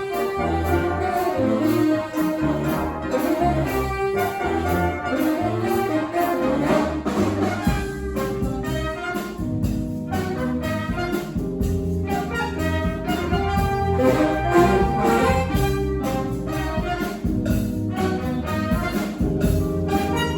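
A live brass band playing: horns over a low, steady bass line and drums.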